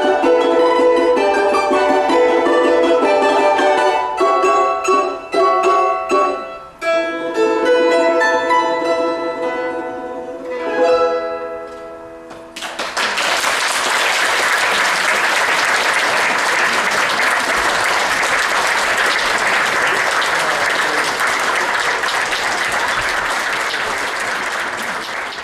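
A folk string trio of domra, balalaika and table gusli plays the closing bars of a piece in quick plucked and tremolo notes, ending on a final chord that rings out. About twelve seconds in, the audience breaks into steady applause.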